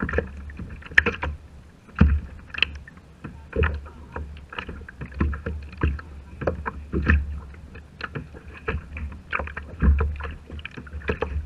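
Choppy seawater slapping and splashing against the plastic hull of a Hobie fishing kayak in irregular knocks and splashes, over a steady low rumble.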